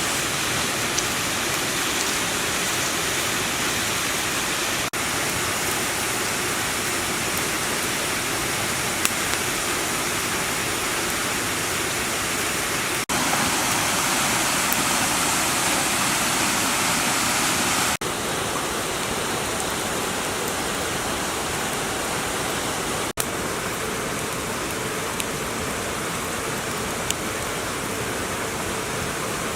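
Steady rushing noise like running water, with brief dropouts every few seconds where the footage is cut and an occasional faint click.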